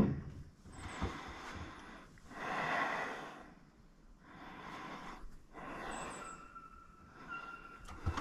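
A person breathing close to the microphone: slow, even in-and-out breaths that swell and fade about every second and a half. A faint steady high tone comes in near the end.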